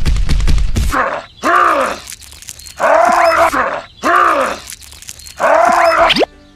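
A rapid clatter of clicks for about a second, then four loud animal-like calls, each arching up and down in pitch and about half a second long, with short gaps between them.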